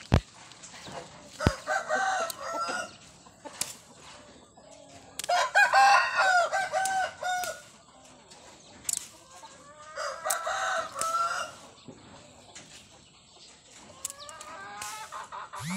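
Rooster crowing: three long crows a few seconds apart, the middle one the loudest, with a few sharp clicks in between.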